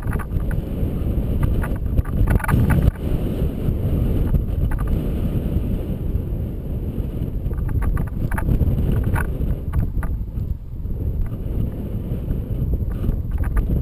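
Flight airflow buffeting the microphone of a camera towed on a line behind a flying paraglider: a steady, low wind rush, with scattered light clicks and knocks.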